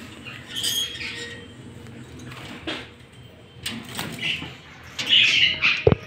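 Budgerigars chirping in short, scattered calls, with wing flutters and a couple of sharp clicks from the wire cage.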